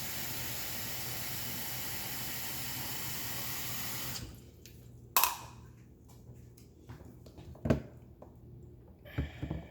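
Kitchen tap running steadily into the coffee maker's carafe, shut off about four seconds in, followed by a few sharp knocks and clinks.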